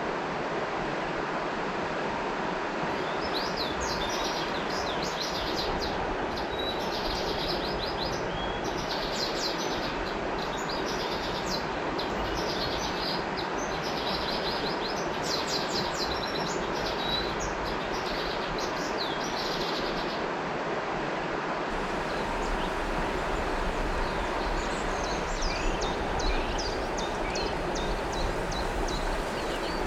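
River water rushing steadily, with small birds chirping and twittering over it in quick, high calls that come thickest in the first two-thirds and thin out near the end.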